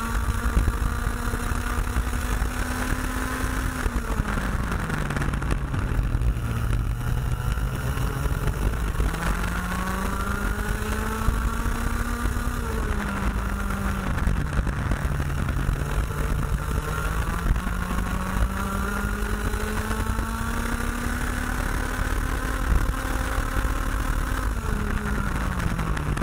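Junior IAME X30 125cc two-stroke kart engine heard onboard at racing speed, its revs climbing steadily along each straight and dropping off sharply three times as it slows for corners, about four, thirteen and twenty-five seconds in.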